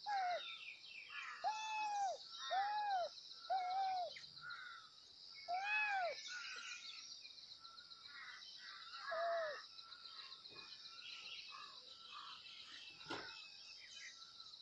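Kittens meowing: about six short, high calls that rise and fall, most of them in the first few seconds and one more a few seconds later, over a steady high pulsing trill.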